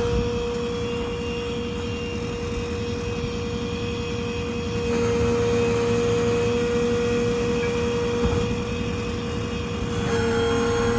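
Ford 6.7 Power Stroke diesel running with the steady high whine of the truck's hydraulic system as the service crane is worked. The whine and engine get louder about five seconds in, ease off shortly before the end, and load up again near the end.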